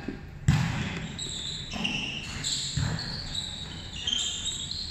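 Volleyball rally: the ball being struck by players' hands and arms, with a sharp, loud hit about half a second in and softer hits after it.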